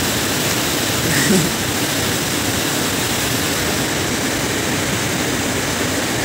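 Steady rush of fast-flowing water, an even, unchanging noise.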